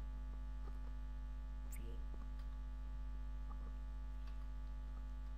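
Steady electrical mains hum on the recording, with a few faint clicks from computer keys and a mouse while text is copied and pasted.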